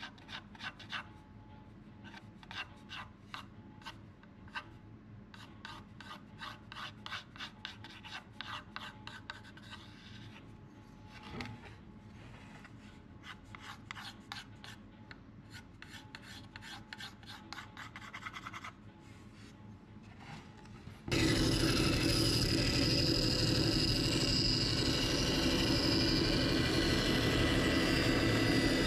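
Short scratchy strokes of a pen marking a line on a rough-sawn ash board, with hands rubbing across the wood. About 21 seconds in, a band saw suddenly takes over, running steadily and much louder.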